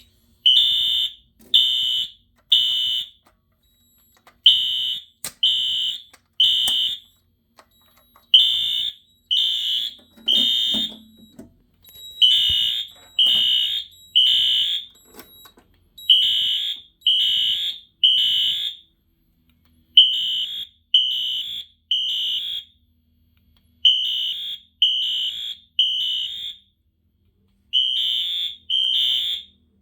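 Fire alarm horns of Gamewell AS and NS horn strobes (rebranded Wheelock devices) sounding the temporal-three evacuation pattern. Each cycle is three loud, high-pitched blasts and then a pause, repeating about every four seconds, with faint ticks between the blasts.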